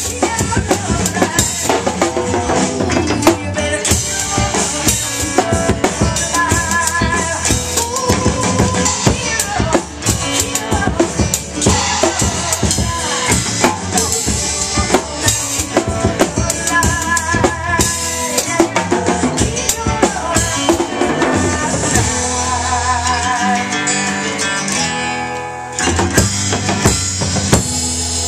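Acoustic drum kit played with sticks, a steady rock groove of bass drum, snare and cymbals, along with a recorded rock song whose wavering melody line sits above the drums. Near the end the low drums drop out for a couple of seconds before the full beat comes back in.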